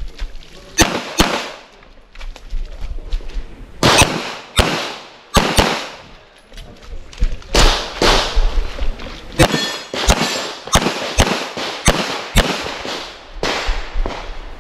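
Handgun shots fired in quick pairs, about twenty in all, in short strings separated by gaps of a second or two.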